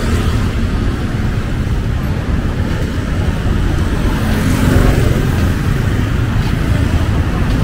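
Steady street traffic noise, a continuous low rumble of passing vehicles with no single event standing out.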